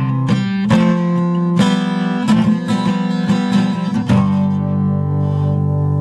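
Background music on acoustic guitar: plucked and strummed chords with a steady beat.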